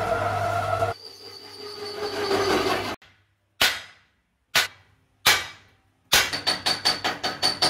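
Hammer blows ringing on a steel truck rim clamped in a lathe: three sharp single strikes about a second apart in the middle. Near the end the lathe turns the rim with a fast rhythmic clatter of about four knocks a second.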